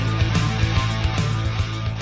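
Background music with a fast steady beat, fading slightly toward the end.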